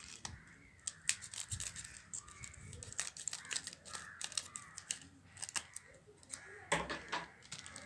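Scissors snipping across the sealed top of a black chocolate-bar wrapper: a run of short, sharp snips with the wrapper crinkling, loudest near the end.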